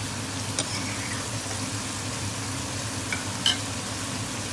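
Food sizzling steadily in hot oil in a pan, with a few sharp clicks of a utensil against the pan, the loudest about three and a half seconds in.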